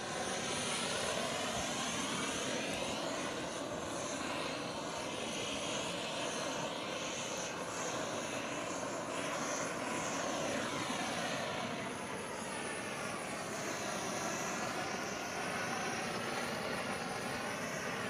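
LPG spray torch (gas-gun burner) burning with a steady, continuous hiss of the flame, its tone wavering slightly as the torch is swept back and forth low over the floor.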